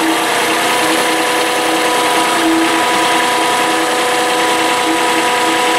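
Compact tractor's engine running at a steady speed while it works its front-end loader.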